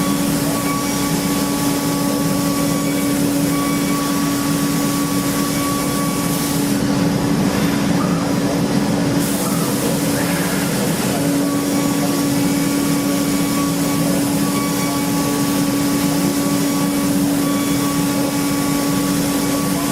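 CNC machining centre cutting an engine block: a steady spindle tone over a constant hiss of cutting, with a brief break in the tone about 11 seconds in.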